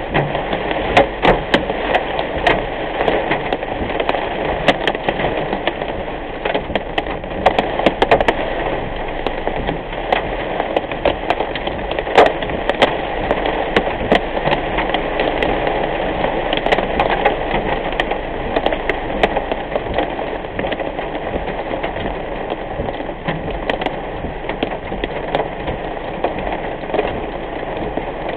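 Heavy rain pelting a moving car's windshield and roof, heard from inside the car: a steady wash of noise with many sharp ticks of hard-hitting drops, thickest in the first half.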